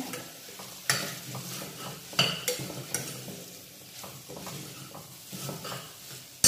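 Beef being stir-fried in a stainless steel pressure cooker pot with a steel ladle: a sizzle with the ladle scraping and clinking against the pot a few times, ending in one loud sharp knock of the ladle on the pot.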